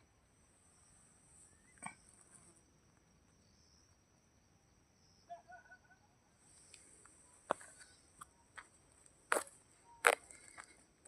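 Insects buzzing steadily at a high pitch, with a handful of sharp clicks or knocks, the loudest two near the end, and a few faint short chirps about five seconds in.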